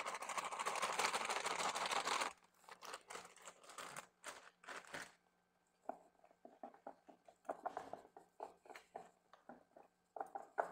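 Plastic bag of wheat flour crinkling as the flour is poured out onto wet potato wedges in a plastic tub, a steady rustling hiss for about two seconds. After that, scattered faint crinkles and light taps as the tub is handled to coat the potatoes.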